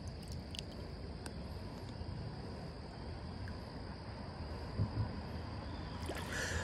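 Steady outdoor background: a constant high insect drone over an even low rush, with two soft knocks about five seconds in.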